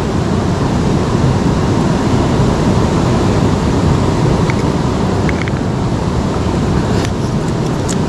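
Steady rushing of flowing river water, loud and unbroken.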